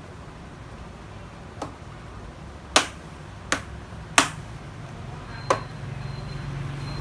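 Five sharp clicks at uneven intervals from the thin frame of a Samsung 43K5500AK LED TV being pressed by hand along its edge, the frame's clips snapping into place. A steady low hum comes in about five seconds in.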